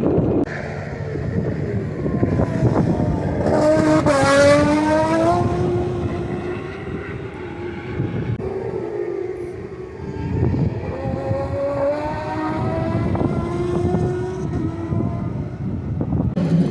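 Turismo Carretera race cars running at racing speed past the circuit. The loudest pass comes about four seconds in, with its engine note climbing as the car accelerates. More cars follow, with a second rising engine note between about ten and fifteen seconds.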